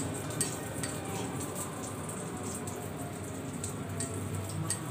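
Hand kneading and mashing fresh chhena (cheese curds) against a plate: a soft, steady crackly rubbing with scattered light clicks as the fingers press the curds across the plate.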